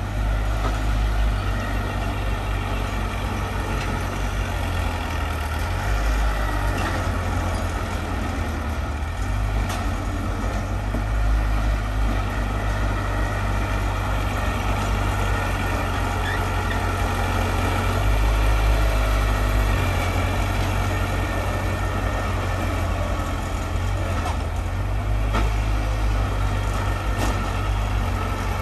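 Heavy diesel earthmoving machinery running steadily. Its low engine rumble swells and eases every few seconds.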